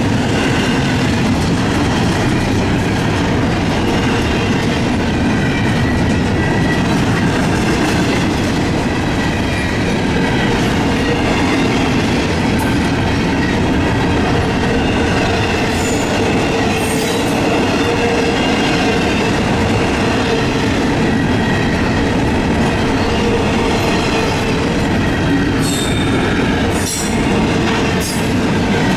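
Double-stack intermodal freight train's container cars rolling past a grade crossing: a loud, steady rumble of steel wheels on the rails, with faint high wheel squeal. A few sharp clicks come in the second half.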